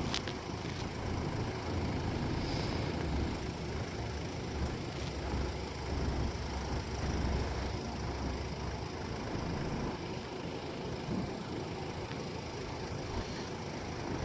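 Steady low rumble of road traffic, heavier in the first half and easing off after about nine seconds.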